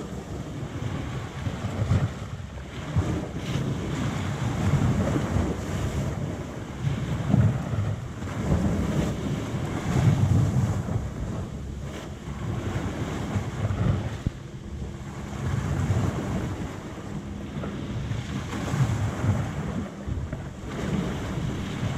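Small waves breaking and washing up onto a sandy beach, with wind buffeting the microphone in low gusts.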